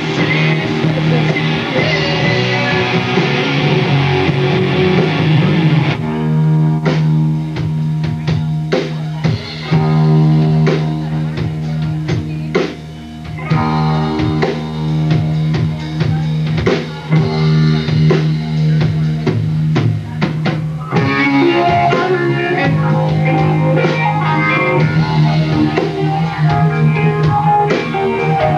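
Rock band playing live, instrumental with no singing: electric guitars, bass guitar and drum kit. About six seconds in the band thins to a sparser section of separate drum hits and held guitar notes, and about twenty-one seconds in the full band comes back in.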